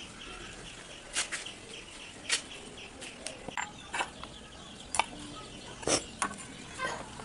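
Scattered sharp clicks and light knocks, about ten in all, as small metal hardware (screws and a steel hinge) and wooden pieces are handled and set down on a concrete floor.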